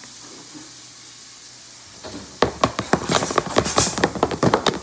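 A utensil stirring cake batter in a plastic tub: quiet at first, then from about two and a half seconds in, a fast run of clicks and knocks against the tub.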